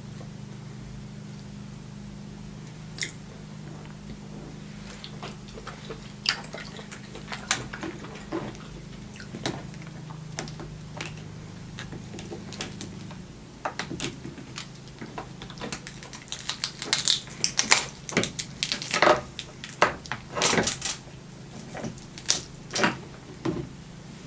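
Snow crab leg shells cracking and snapping as they are broken apart by hand, with wet clicks and crunches. They come sparsely at first and thick and fast in the second half.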